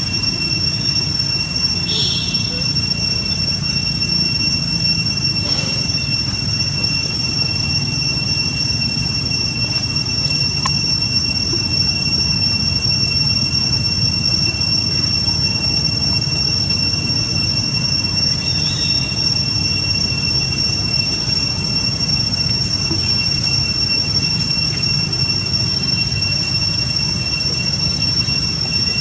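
Steady high-pitched insect drone, typical of cicadas, holding two even pitches over a constant low rumble, with a couple of faint short squeaks about two seconds in and near nineteen seconds.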